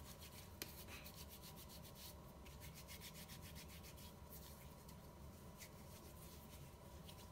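Faint, quick rubbing of two hands together as hand sanitizer is worked over palms and fingers smeared with brown paint.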